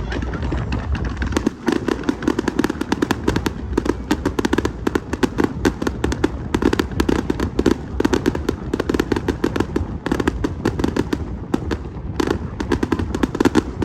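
Fireworks going off in a rapid, continuous barrage of sharp bangs and crackles that starts about a second and a half in.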